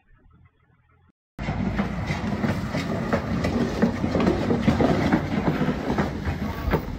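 Dense, rattling scraping clatter of an SUV driving on a wrecked, flat front tyre with its front bumper hanging loose. It starts abruptly about a second and a half in, after near quiet.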